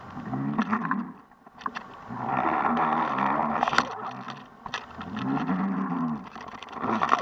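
Underwater noise picked up by a camera in its housing as it is dragged with a hooked fish: rushing water and a hum that rises and falls in pitch about every two seconds, with scattered clicks.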